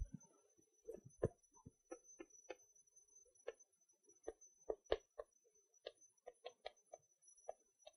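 Chalk tapping and scraping on a chalkboard as equations are written: a faint, irregular run of short clicks, several a second. A low thump comes right at the start.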